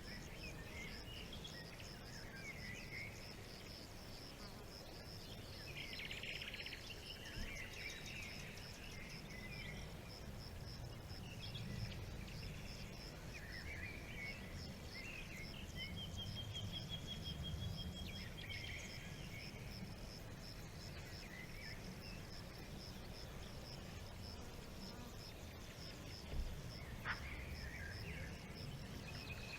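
Forest ambience: a high insect chirp pulsing steadily a few times a second, with birds calling now and then, one of them in a longer trill about halfway through. A low rumble runs underneath, and there are two short knocks near the end.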